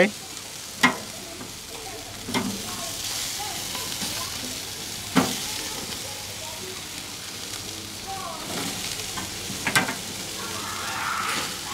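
Chicken wings sizzling on a high-heat charcoal barbecue grill as they are turned over, with a few sharp clicks.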